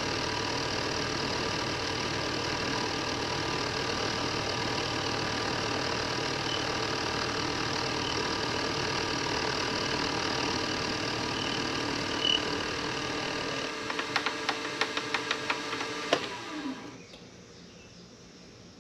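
Precision Matthews PM-25MV benchtop milling machine running, a steady machine hum made of many tones. About two-thirds of the way through comes a quick run of sharp ticks, then the spindle winds down with a falling tone and the running noise stops.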